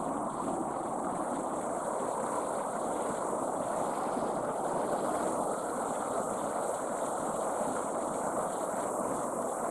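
Mountain river water rushing over a rocky bed, a steady, even rush without breaks.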